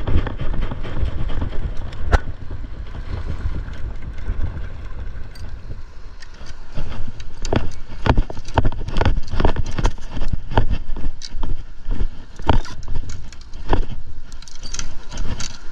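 Wind rumbling on the microphone, with a run of irregular sharp clicks and knocks from about halfway, roughly one or two a second.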